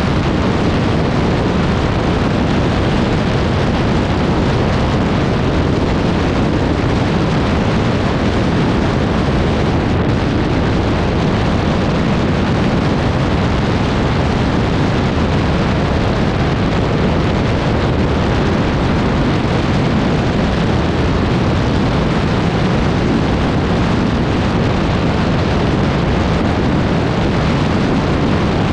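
ATV engine running steadily under way, a loud continuous noise with no pauses, mixed with wind noise on the microphone.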